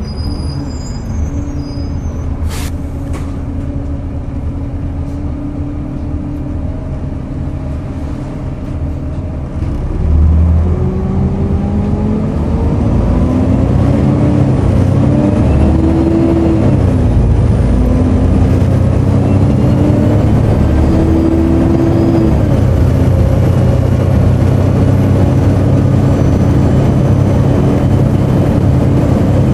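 Volvo B7TL double-decker bus's engine, steady for about ten seconds, then pulling away under load. Its note rises, drops at a gear change, rises again and settles. A faint high-pitched turbo whine climbs with the engine. A single sharp click sounds near the start.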